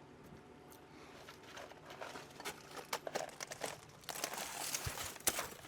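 Irregular crunching and crinkling of burned house debris, with scattered sharp clicks, growing louder from about a second and a half in.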